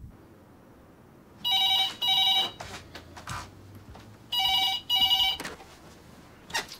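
Telephone ringing in a double-ring pattern, two rings close together, heard twice about three seconds apart.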